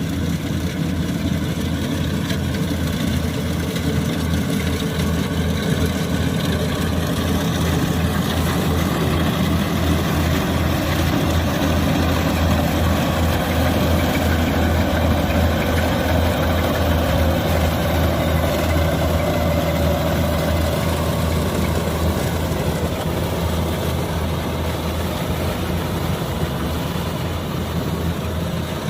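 Kubota combine harvester's diesel engine running steadily under load while it harvests rice, growing a little louder in the middle.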